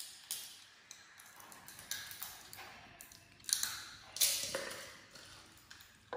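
Irregular small clicks and taps from a young macaque eating sunflower seeds, cracking the shells and handling the small seed dish. Two louder taps come a little past halfway.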